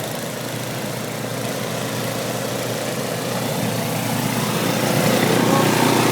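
An engine running steadily, growing a little louder in the second half.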